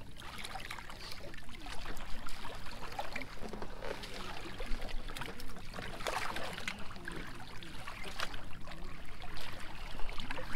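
Water splashing irregularly as a large hooked stingray thrashes at the surface against the side of a boat.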